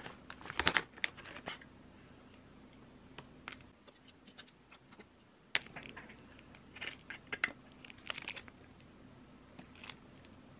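Plastic snack and tea-sachet wrappers crinkling and rustling as they are handled, with crunchy crumbling of a chocolate oat cookie, in short irregular crackly bursts: a cluster at the start, more in the middle and near the end.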